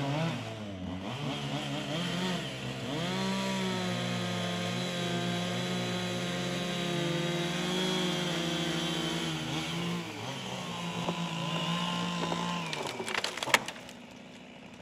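Two-stroke chainsaw cutting through logs of a fallen pecan tree, its engine revving up and down as it bites into the wood. The saw dies away near the end, followed by a few sharp knocks.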